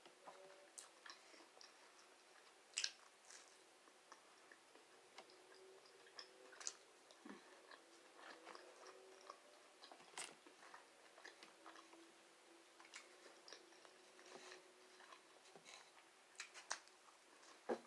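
Someone eating chicken nuggets, chewing and biting, with scattered soft wet mouth smacks and clicks. Quiet overall, with a few louder bites, one about three seconds in and another near the end.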